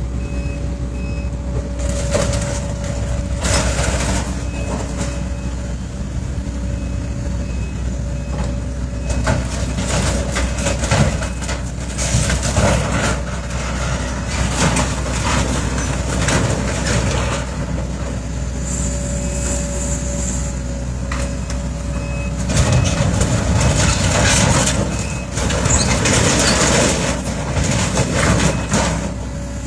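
Heavy demolition machinery tearing down a building: an engine running steadily with a constant whine, under repeated crunching and scraping of material being broken, heaviest near the end.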